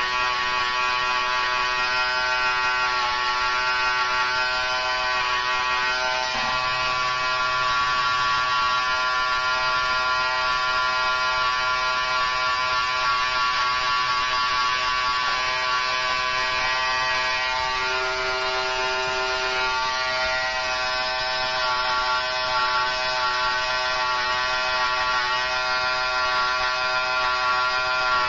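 Electric hair clippers running with a steady buzz while cutting line designs into short hair.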